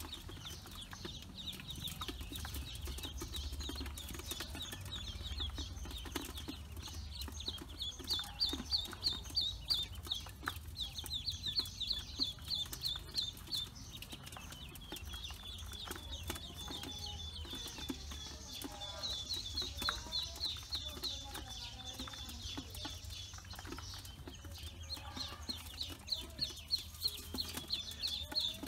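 A bowlful of young ducklings peeping: a dense chorus of high, rapid cheeps, several a second, with faint clicks mixed in. The peeping gets louder about eight seconds in and again near the end.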